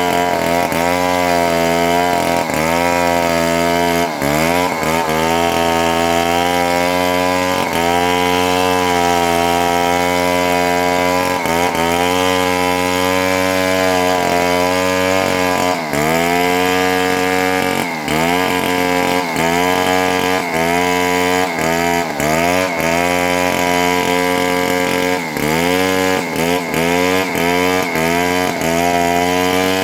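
Chainsaw running at high revs while cutting through a lamtoro (leucaena) tree. Its pitch dips and recovers again and again as the chain bites into the wood, more often in the second half.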